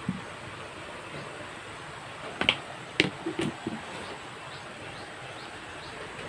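Steady hiss from the wok cooking on the stove, with a few sharp clicks and knocks about two and a half to three and a half seconds in as the plastic measuring spoon is tapped and put down after salting.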